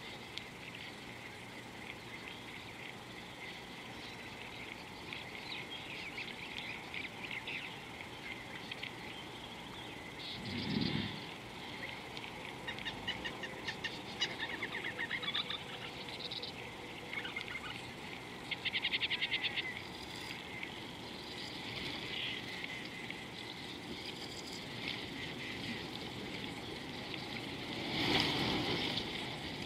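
Outdoor watering-hole ambience: a steady chorus of small wildlife chirping and trilling, with some rapid, evenly pulsed trills. A brief low sound comes about eleven seconds in, and a louder rush of noise near the end.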